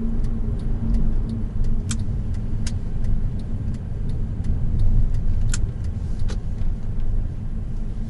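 Honda Odyssey Absolute (RB3) minivan on the move, heard from inside the cabin: a steady low rumble of road and engine noise. A few sharp clicks come through, in pairs about two and five and a half seconds in.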